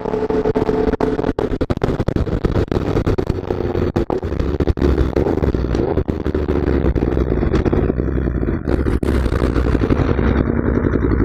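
Superbike engine running at highway cruising speed, heard from the rider's seat under loud wind blast buffeting the camera microphone.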